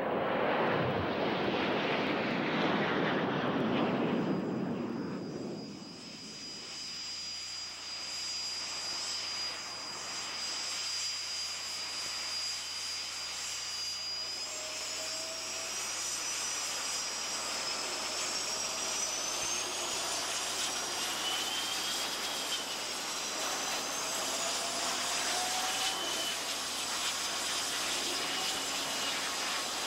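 Alpha Jets passing overhead: a loud jet rush that falls in pitch and fades over the first five or six seconds. Then the high whine of Alpha Jets' Larzac turbofan engines taxiing, steady, with tones that rise in pitch now and then as the engines spool up.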